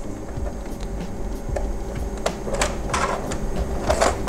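Light clicks and scrapes of the plastic parts of a car instrument cluster being handled during reassembly, over a steady low hum.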